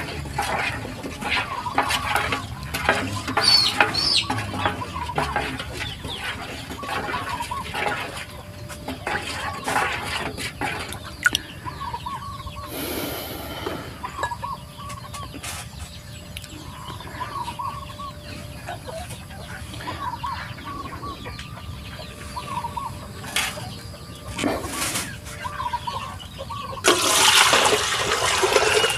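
A wooden stick stirring and sloshing a brown-sugar solution in a basin, then chickens clucking now and then in the background. A louder splashing rush comes near the end.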